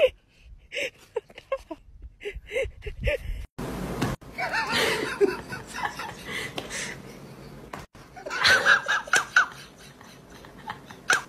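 People laughing and snickering in short repeated bursts, with a little talk.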